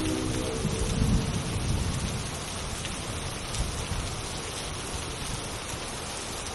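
Steady rain with a low rumble of thunder swelling and fading about a second in.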